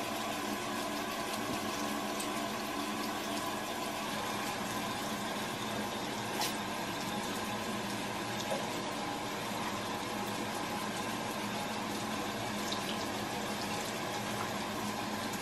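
Bathroom sink tap running steadily, water pouring into the basin, with a few faint clicks.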